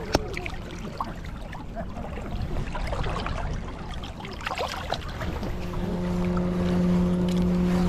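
Shallow river water splashing and lapping around hands as a walleye is let go into the current, with scattered small splashes. About five and a half seconds in, a steady low hum comes in and holds.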